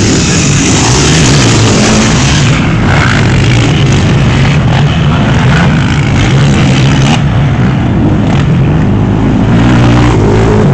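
Racing vehicle engines on a dirt track, revving up and down as they go round the course. The sound is loud throughout.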